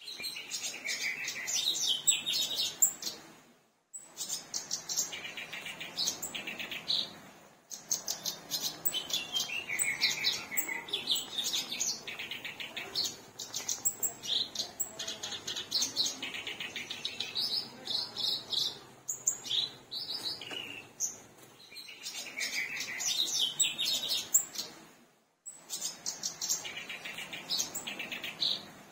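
Black-browed reed warbler singing continuously: long runs of rapid, varied chattering notes, broken by brief silences about four seconds in, around seven seconds and near the end.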